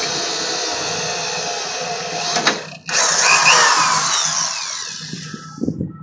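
Variable-speed drill boring an anchor hole through the steel floor of a battery box. It runs steadily, cuts out briefly near the middle, then starts again with a whine that falls in pitch as it slows and fades out near the end.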